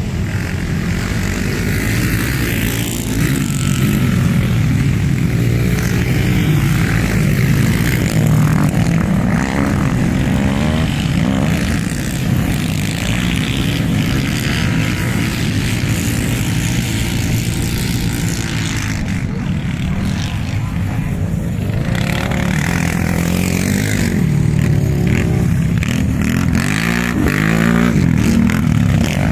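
Quad bike (ATV) engines racing, revving up and down continuously, with rising and falling pitch as the throttle opens and closes.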